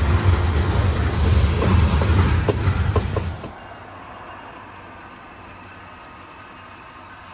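Loaded coal train of hopper cars rolling past: a steady low rumble with a few sharp wheel clicks. It cuts off suddenly about three and a half seconds in, leaving only a faint steady hum.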